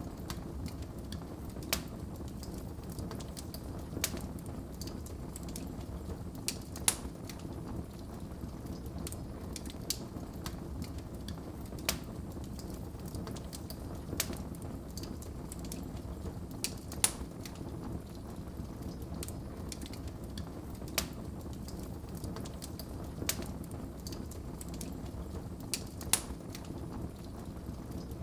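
Wood fire in a fireplace crackling: a steady low rumble of burning with sharp pops every second or two.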